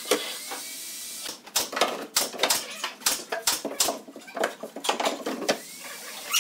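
Irregular wooden clicks and knocks as a pine drawer in a storage bed's base is pulled out and pushed shut.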